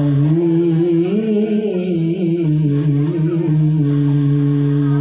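A man's voice, amplified through a microphone, holding one long chanted note in Quranic tilawah style. The pitch winds up and down in ornamented turns, then settles into a steady held tone: the drawn-out close of the recitation.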